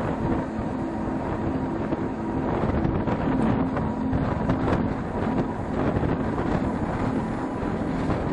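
Narrow-gauge steam train's carriages running along the track: a steady rumble and rattle of wheels on rails, with wind buffeting the microphone held out of the carriage window.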